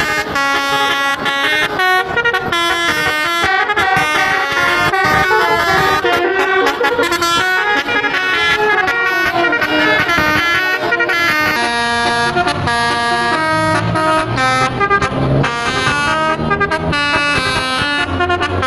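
Bus telolet horns, the multi-tone musical air horns of Indonesian buses, playing melodies of quick stepped notes without a break. The pattern of notes changes about twelve seconds in.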